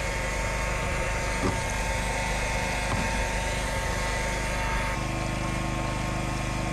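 A small engine running steadily, its tone changing slightly about five seconds in.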